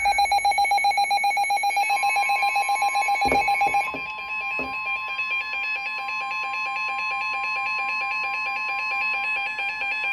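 Weather radio alert tones from two stations sounding at once. A rapidly pulsing alarm tone stops about four seconds in, and a steady NOAA Weather Radio warning alarm tone starts about two seconds in alongside a second warbling alarm. A couple of faint clicks fall in the middle.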